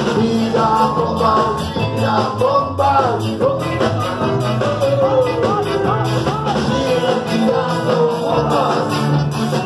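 Live ska band playing: electric guitar, bass and drums with a melody line over a steady beat, recorded from within the audience in a small club.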